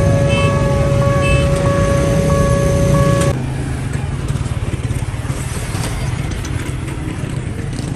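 A steady electronic tone with a higher beep pulsing about twice a second over a low engine rumble, cut off abruptly a little over three seconds in. Then motorcycle engines and road traffic run steadily.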